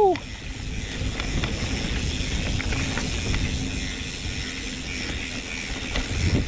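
Mountain bike rolling along a dirt trail: rumble from the tyres and frame over rough ground, with scattered ticking from the bike's mechanism.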